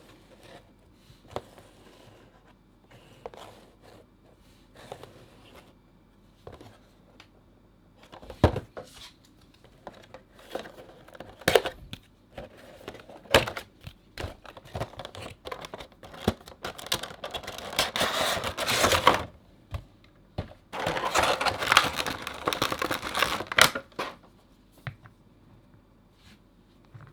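A Funko Pop cardboard box and its plastic insert being handled and opened: scattered light taps and clicks, a few sharper knocks near the middle, then two long spells of plastic crinkling with a short pause between them as the figure is freed from its packaging.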